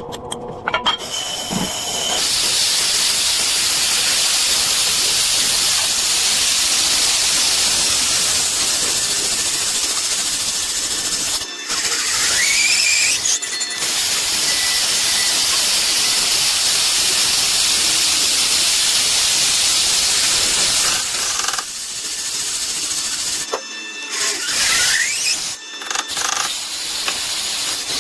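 Brake lathe cutting a disc brake rotor: a steady, loud hiss with a faint squeal, starting about two seconds in and breaking off and restarting a few times near the end.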